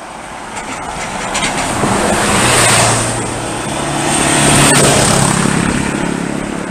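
Road vehicles passing close one after another on a narrow road: a coach, a quad bike and a small pickup, their engines and tyres swelling and fading. The sound peaks twice, about two and a half seconds in and again near five seconds.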